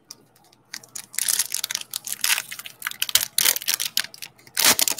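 Foil wrapper of a Donruss football trading-card pack being torn open and crinkled by hand: a run of crackly rustles, the loudest burst near the end.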